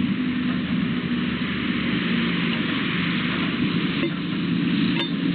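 Steady rain hiss with a car engine passing on the road in the first couple of seconds; two sharp clicks near the end.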